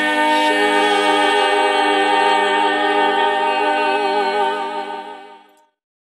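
Sung intro jingle: a long held chord of voices, wavering slightly, that fades out and stops about five and a half seconds in.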